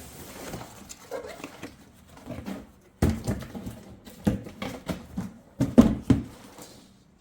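Cardboard box and packaging being handled, a run of sharp rustles and knocks that starts suddenly about three seconds in.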